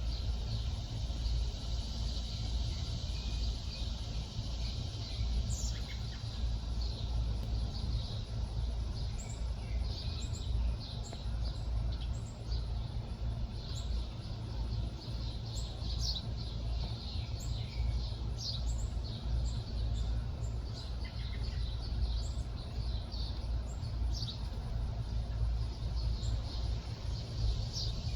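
Many short, high bird chirps and calls, scattered and overlapping, over a steady low rumble.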